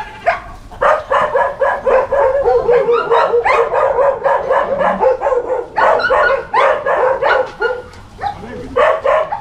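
Dog barking excitedly in quick runs of short barks, several a second, with a brief pause about five seconds in.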